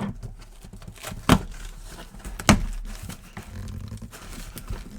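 Two sharp knocks about a second apart, with quiet handling noise around them: trading-card boxes and cards being handled on a tabletop.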